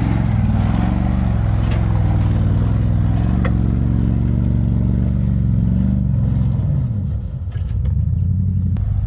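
Ford F-150 pickup's engine running while the truck drives on its newly replaced clutch, the engine note wavering with a few sharp rattles. About seven seconds in the engine note falls away and dips briefly, then picks back up.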